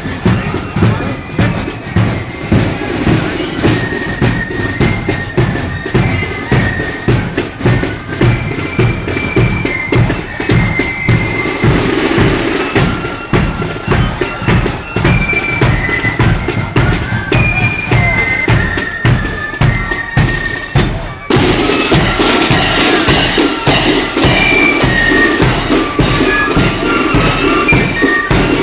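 Parade marching band playing a tune on high melody instruments over a steady bass-drum and snare beat. About two-thirds of the way through the sound dips for a moment, then comes back fuller and brighter.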